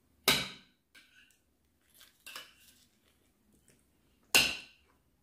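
Tableware clinking and clattering: two sharp knocks about four seconds apart, with a few softer clinks between them.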